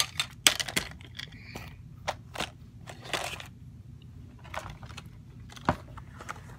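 Small hard objects being put back into a plastic basket and shuffled around inside it: irregular clatters, scrapes and rustles, with a few sharper knocks.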